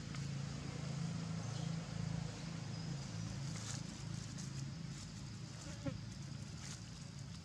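A steady low hum, with a few faint crackles of long-tailed macaques moving over dry leaf litter.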